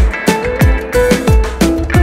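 Background music with a steady beat: deep bass drum hits that drop in pitch, about three every two seconds, under held synth notes.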